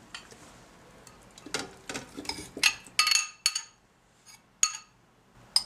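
A metal spoon scraping and tapping against a glass bowl and a blender jar while tuna is spooned in: a run of short knocks and scrapes, with several ringing clinks in the middle.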